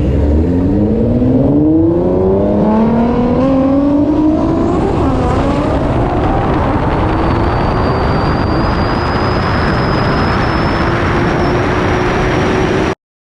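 A car accelerating hard down a drag strip, its pitch climbing steadily for about six seconds and then holding high with a thin whine on top. The sound cuts off abruptly near the end.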